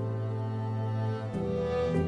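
Slow background music of long held notes, moving to a new chord about a second and a half in.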